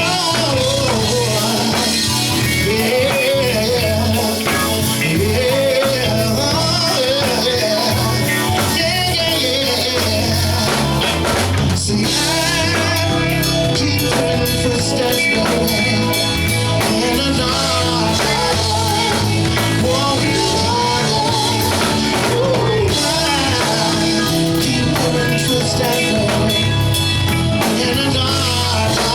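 Live soul band playing a song, drum kit and bass keeping a steady groove under a wavering lead melody line.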